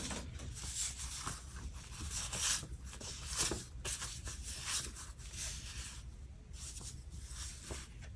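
Paper sticker sheets and planner pages being handled, with irregular short crinkling, rubbing and peeling strokes as a sticker is taken off its sheet.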